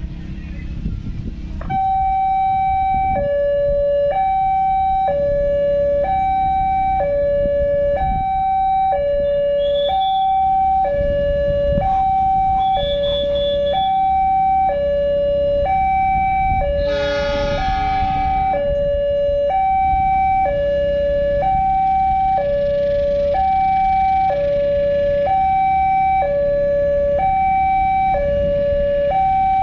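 Railway level-crossing warning alarm, an electronic two-tone signal alternating high and low about once a second, starting about two seconds in. It warns that a train is approaching as the barriers close. About halfway through, a brief louder blare with many overtones sounds over it.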